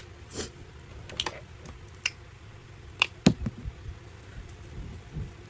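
A series of separate sharp clicks and knocks, the loudest a pair about three seconds in: small skincare bottles and caps being handled and set down on a counter.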